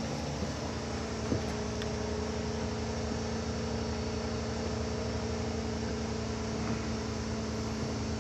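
A steady mechanical hum with a constant low tone, with a faint tick about a second in.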